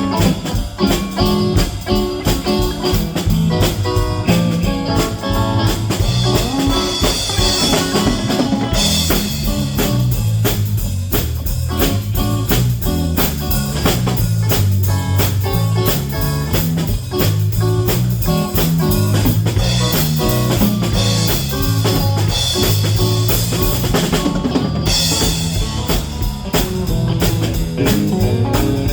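Live band playing a tune, with a drum kit keeping a steady beat under guitar and a low bass line.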